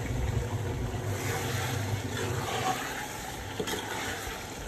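Spoon stirring wet chicken and masala in an aluminium pot, with a sharp knock against the metal about three and a half seconds in, over a steady low hum.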